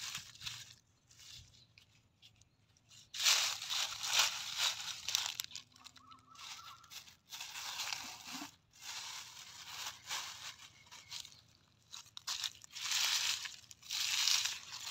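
Dry fallen leaves and grass crunching and rustling in several irregular bursts as they are brushed aside by hand.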